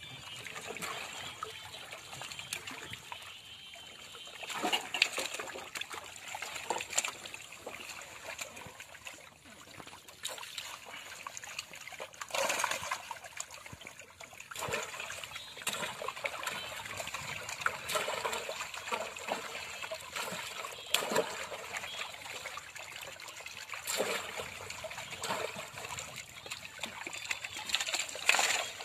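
Live pond fish thrashing in a crowded net in shallow water: steady trickling and dripping with a sudden splash every few seconds. Near the end a fish splashes as it is dropped into a plastic barrel of water.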